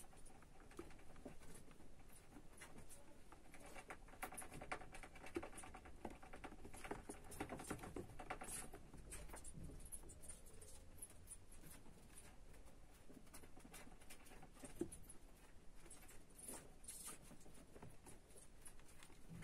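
Faint patter and scratching of a hamster's claws on the floor of a plastic bin: many small, irregular ticks and scrapes, busier in the first half.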